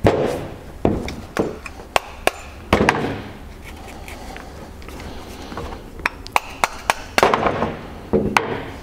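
Small plastic mallet knocking on the casing of a Hitachi starter motor from a 2004 Honda BF40 outboard to knock it apart: about six sharp knocks in the first three seconds. Lighter metallic clicks and clattering follow later as the housing and parts are pulled apart and handled.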